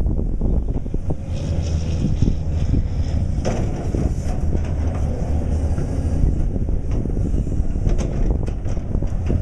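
Caterpillar excavator's diesel engine running steadily with a low rumble, with wind buffeting the microphone and a few sharp knocks.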